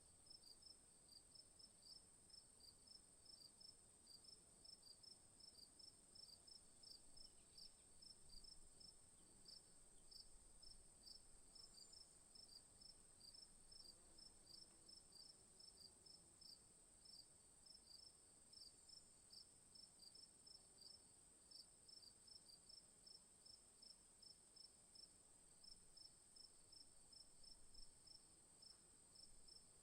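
Crickets chirping: short, regular chirps repeating several times a second over a steady high-pitched trill, faint throughout.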